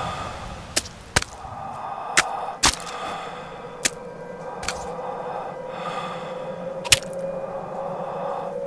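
About seven sharp, irregularly spaced clicks or cracks, the loudest near the end, over faint hiss and a faint steady tone.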